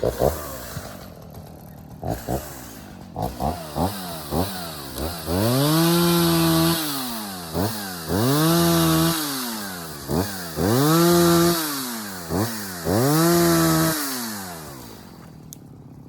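Petrol chainsaw revving: a few short throttle blips, then four runs up to full speed, each held for about a second before dropping back toward idle.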